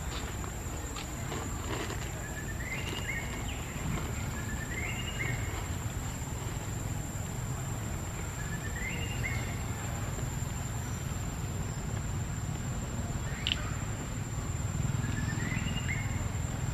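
Outdoor forest ambience: a steady high whine over a low rumble, with a short chirping call that steps up in pitch, heard four times several seconds apart, and one sharp click near the end.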